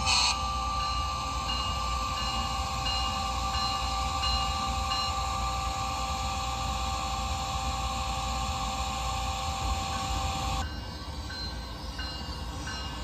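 Model ACS-64 electric locomotive running slowly along its track: a steady mechanical running sound with a couple of held whining tones. The sound changes abruptly near the end, turning quieter without the tones.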